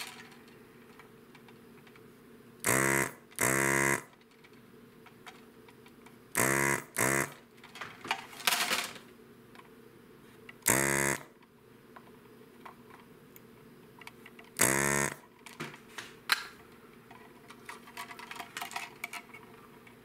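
Hakko desoldering gun's vacuum pump buzzing in seven short bursts of about half a second each, every trigger pull sucking molten solder off an electrolytic capacitor's leads on a circuit board. Small clicks come between the bursts.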